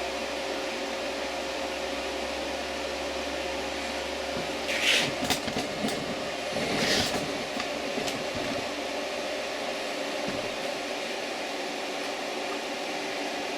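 Steady fan-like whirring of a power inverter running under a load of about 700 watts, with a low hum that drops away about ten seconds in. Two brief hissing rustles come about five and seven seconds in.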